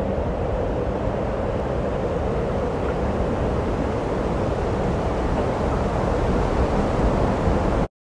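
Steady rushing blizzard wind with a deep rumble underneath; it cuts off suddenly just before the end.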